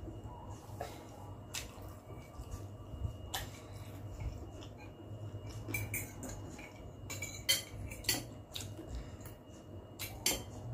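Metal spoon and fork clinking and scraping against a glass bowl while eating noodles, with scattered sharp clinks that come more often in the second half. A low steady hum runs underneath.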